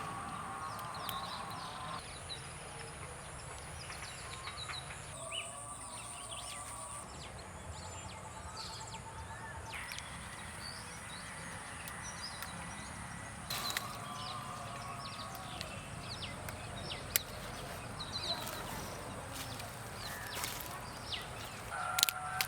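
Rural outdoor ambience: many birds chirping in short calls over a steady high-pitched drone, the background shifting abruptly several times. Two sharp clicks stand out, one about two-thirds of the way through and one near the end.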